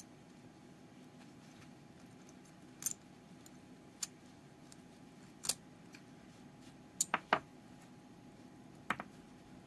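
Small metal parts of a miniature 1911 pistol keychain model clicking and tapping as it is taken apart by hand: about eight short, sharp clicks spread out, some in quick pairs.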